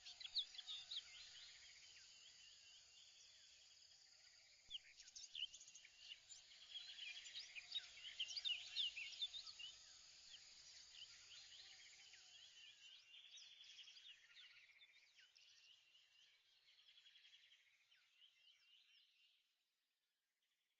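Faint birdsong: many birds chirping, with quick sweeping calls and rapid repeated trills, busiest around the middle and fading out near the end.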